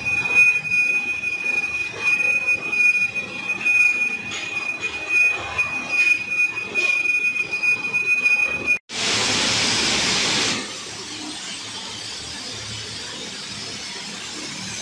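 A large lathe turns a steel roller while the cutting tool squeals with a steady high whine over the machine's uneven running noise. About nine seconds in the sound cuts off abruptly. A short burst of hiss follows, then steady lower noise.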